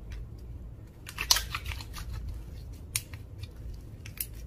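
Slime being mixed, giving off crackling clicks and pops: a quick cluster about a second in, then single sharp pops near the middle and near the end.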